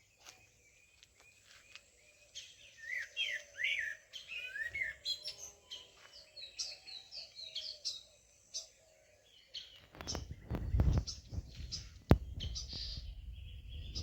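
Several songbirds chirping and twittering in quick, high, sliding notes. A few seconds before the end, a loud low rumbling takes over, with one sharp click.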